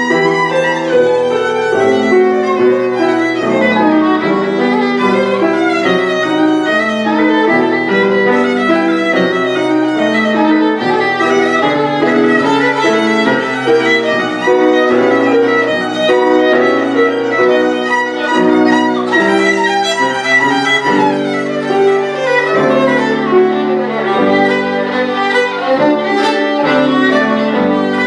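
Solo violin playing a fast stream of short, quickly changing notes, with a lower accompaniment sustaining bass notes beneath.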